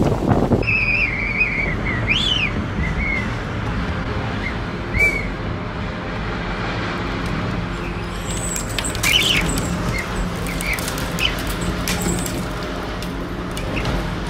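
Loud wind buffeting the microphone cuts off about half a second in. It gives way to a steady rush of storm wind, with short high chirping whistles now and then.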